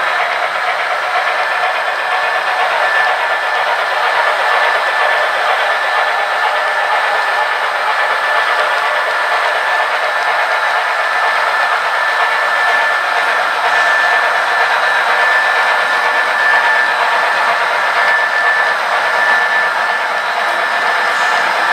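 Model train running on the layout: a steady rushing noise with a thin, steady high whine through it.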